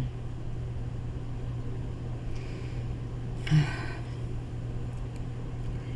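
Steady low mechanical hum, with one brief short noise about three and a half seconds in.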